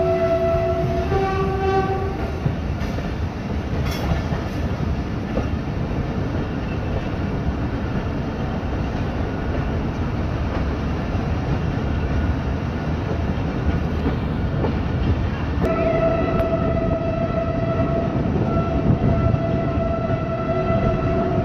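Train running on the track, a steady rumble heard from a carriage window. The locomotive's horn sounds at the start, shifts up in pitch about a second in and stops a moment later, then blows again steadily from about sixteen seconds in.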